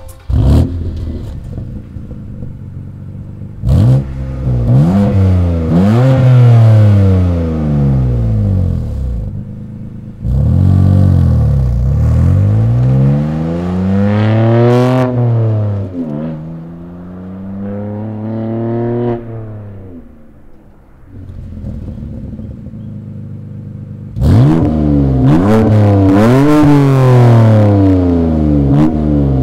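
BMW M2 Competition's twin-turbo 3.0 L inline-six through an MBRP 3-inch resonator-back exhaust, coming in loudly about half a second in, then idling and being revved repeatedly, with the engine pitch climbing and falling. There are quieter stretches in the middle, and strong revving again from a little before the end.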